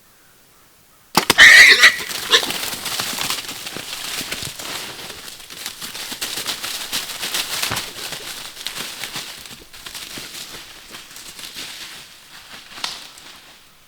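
A feral hog gives a sharp squeal about a second in, then hogs crash off through brush and dry leaves, the noise slowly dying away over the next several seconds.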